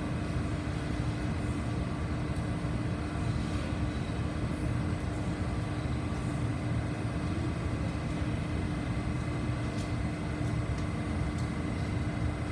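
Steady interior hum of a stationary SMRT CT251 metro train with its doors open at a station platform: ventilation and onboard equipment running evenly, with a steady low tone under it.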